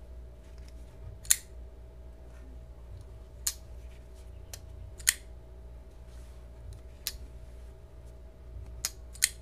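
RJ Martin Q36 flipper knife, with titanium scales, being flipped open and closed: six sharp metallic clicks a second or two apart as the blade snaps into place, the last two close together near the end.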